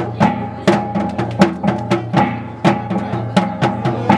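Dance music with a drum struck in a quick even beat, about two to three strokes a second, over steady held tones.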